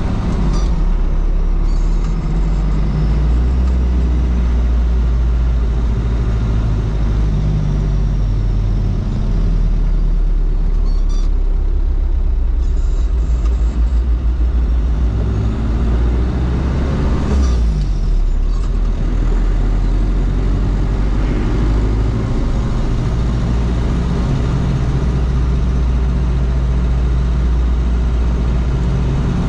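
Toyota Land Cruiser BJ73's 13B-T four-cylinder turbo-diesel running under way, its pitch stepping up and down as the gears change, with one short sharp noise a little past the middle.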